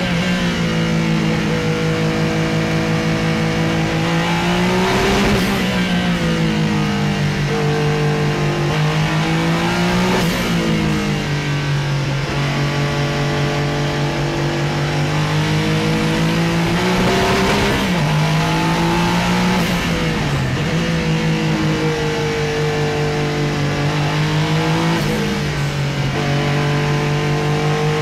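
Porsche 956 Group C race car's twin-turbo flat-six engine at full racing speed, heard from inside the cockpit. Its note climbs in pitch through the gears, with a gear change or a drop under braking every few seconds.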